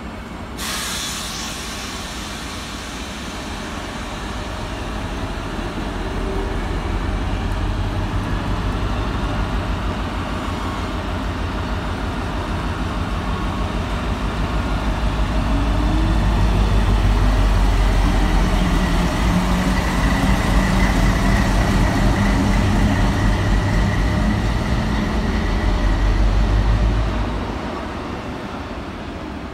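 British Rail Class 60 diesel locomotive 60024 running light engine past at low speed, its eight-cylinder Mirrlees diesel engine throbbing. It grows louder as the locomotive passes and drops off sharply near the end.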